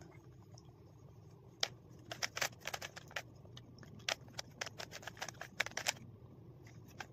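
A 3×3 Rubik's cube being turned quickly by hand: quick, irregular clicking of its plastic layers, starting about a second and a half in.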